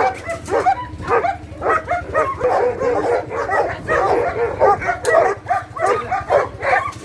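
A dog yelping and whining in a quick, unbroken run of short high-pitched calls, several a second.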